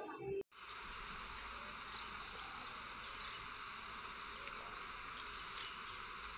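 A faint, steady hissing buzz with no rhythm or change, starting abruptly about half a second in.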